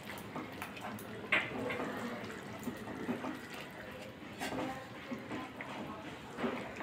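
Wooden spatula stirring chicken curry in thin gravy in a pan: wet sloshing and squelching, with a few light knocks of the spatula against the pan.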